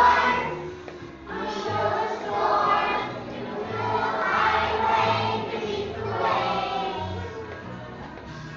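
A group of young children singing a song together over musical accompaniment with a steady bass line.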